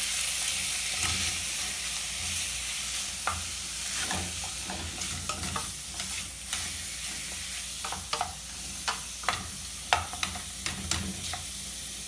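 Chopped pork and sausage sizzling in hot olive oil in an aluminium pot, stirred with a wooden spoon. A steady frying hiss, loudest at first, with scattered sharp clicks and knocks of the spoon against the meat and pot, most of them in the second half.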